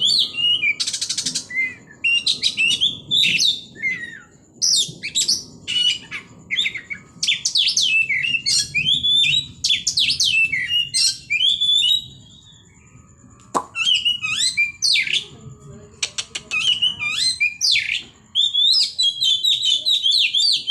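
Oriental magpie-robin (kacer) singing a fast, varied song of high chirps and whistled phrases with rapid sharp bursts, the 'tembakan' shots prized by bird keepers. The song breaks off for a second or two just past the middle. A single sharp click comes just after that break.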